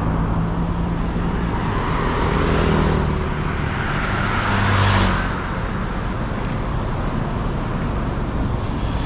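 Road traffic on a wide city road: cars and motorbikes driving past with a steady engine hum, one vehicle passing close and loudest about five seconds in, then a steadier hiss of traffic.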